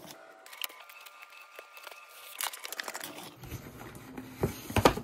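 Packing tape on a cardboard shipping box being slit with a hobby knife and the box flaps pulled open: tearing and scraping of tape and cardboard, then handling noise with several sharp knocks, loudest near the end.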